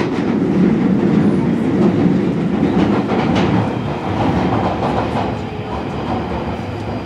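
London Underground 1995 stock Northern Line train running through the tunnel, a steady loud rumble heard from inside the carriage, with a few clicks of the wheels over the rails. The noise eases off over the last few seconds as the train slows into the station.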